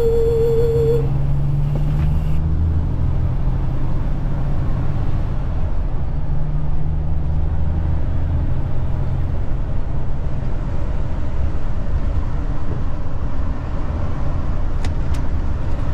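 MAN truck's diesel engine running under way, heard from inside the cab as the truck pulls onto the motorway, its low note shifting a few times. Two faint clicks come near the end.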